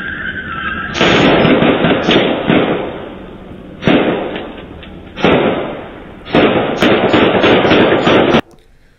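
Gunshots picked up by a Ring doorbell camera's microphone, thin-sounding with the top end cut off: a rapid string of shots about a second in, single shots near 4 and 5 seconds in, then another long rapid string, each shot ringing off the street, cutting off suddenly near the end.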